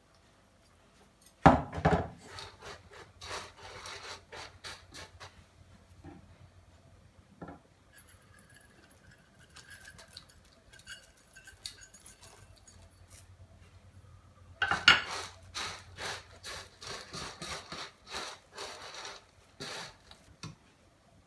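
Dry fried boondi and steel utensils clattering in a stainless steel bowl: a sharp clatter about a second and a half in, followed by quick rustling ticks, then a quieter stretch and a second run of rustling clatter from about two-thirds of the way through.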